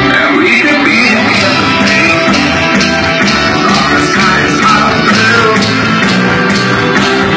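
Loud music with singing and a steady beat, played through a sound truck's sound system.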